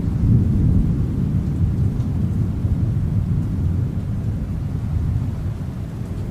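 A long, low rumble of thunder over steady rain, rolling on throughout and easing off toward the end.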